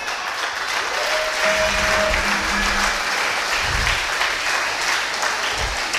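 Church congregation applauding, a steady wash of clapping, with a faint held musical note for about a second near the start.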